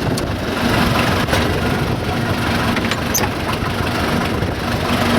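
Case 580C backhoe loader's four-cylinder diesel engine idling steadily, with a couple of light clicks.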